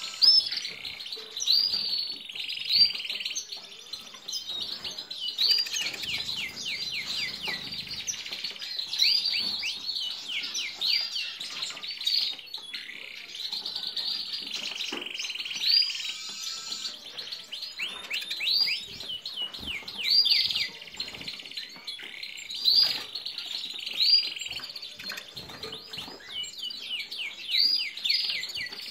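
Caged canaries and Eurasian siskins singing: a continuous run of quick, high chirps and twittering trills with buzzy stretches.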